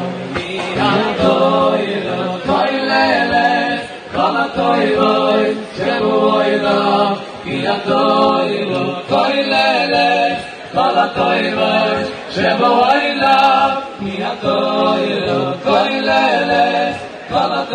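Men's a cappella choir singing a Jewish song in harmony: a moving melody over held lower chords, in phrases of a second or two with short breaths between them.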